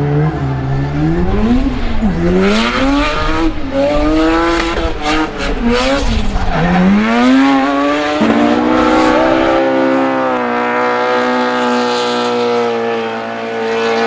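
Drift car engines revving hard, the pitch climbing and falling with the throttle, over tyres squealing as the cars slide sideways. After a sudden change about eight seconds in, an engine holds a steady high note at sustained revs through the slide.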